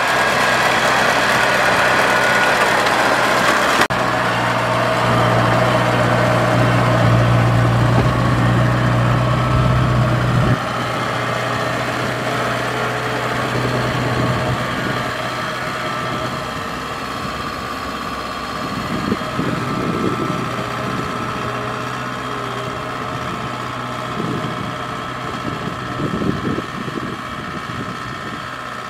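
Kubota combine harvester's diesel engine running steadily with a deep hum, loud at first and quieter from about ten seconds in as the machine moves off along the muddy track.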